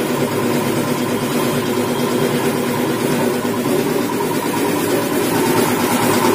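A workshop piston air compressor running steadily, a constant mechanical drone.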